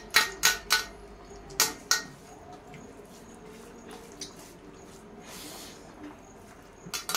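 Wet eating sounds: fingers mixing rice with fish curry on steel plates, and mouths chewing and smacking. Several sharp wet smacks come in the first two seconds, then quieter squishing, with another smack near the end.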